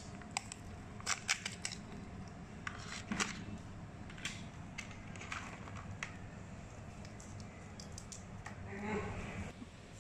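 Crab shells and legs clicking and cracking as fresh crabs are handled in a plastic basin and their top shells are pried off: scattered sharp clicks, then a longer scraping crunch about nine seconds in.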